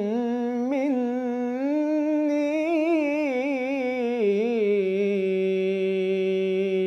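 Unaccompanied young male voice carrying the long, wordless, ornamented final phrase of an Islamic devotional nasheed. The pitch winds through quick turns, then settles into a steady held note for the last couple of seconds and stops.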